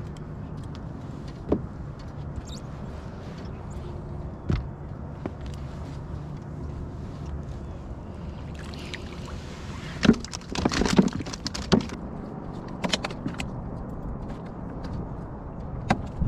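Scattered knocks, clicks and rattles as a caught white bass and fishing tackle are handled in a fishing boat, with a burst of clatter about ten seconds in, over a steady low hum.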